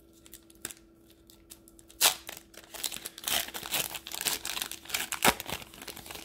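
Foil wrapper of an NBA Hoops trading-card pack being torn open and crinkled by hand. A sharp crackle comes about two seconds in, then dense crinkling of the foil with another sharp crackle near the end.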